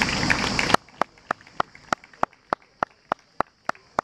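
Audience applause and chatter that cuts off abruptly just under a second in. Evenly spaced sharp clicks follow, about three a second.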